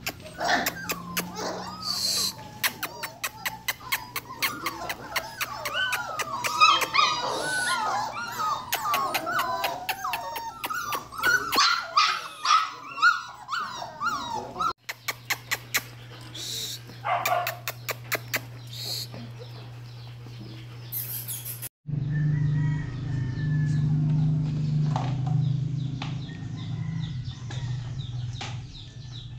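A crowd of month-old Belgian Malinois puppies whining and yelping, many high wavering cries overlapping for the first dozen seconds, mixed with many sharp clicks. Fewer cries and a steady low hum in the later part.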